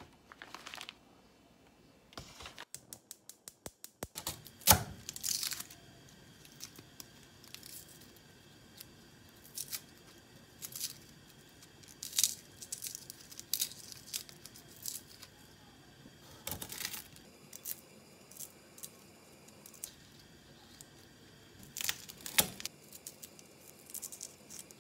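Papery garlic skins crackling and tearing as cloves are peeled by hand, in scattered short bursts, with a few sharp taps on the wooden cutting board.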